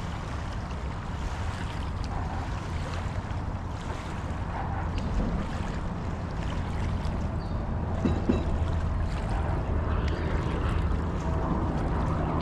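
Steady outdoor riverbank ambience: wind buffeting the microphone over a continuous low rumble.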